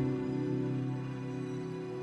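Background music: a slow, soft new-age piece holding a sustained chord.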